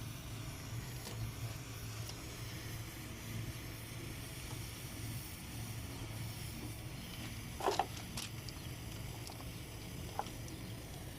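Steady low mechanical hum with a faint hiss, broken by two short sharp clicks or knocks about eight seconds in and a smaller one near the end.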